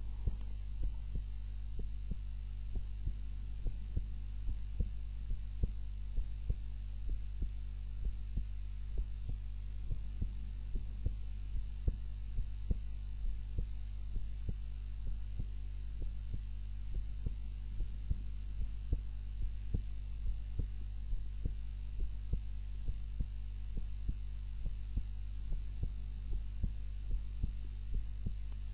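Heartbeat of a sleeping woman lying on her back: regular low thumps, many in close lub-dub pairs, over a steady low hum.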